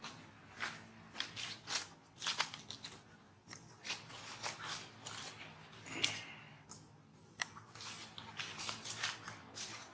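Irregular dry crackling and crunching clicks, a few each second, with the sharpest click about six seconds in.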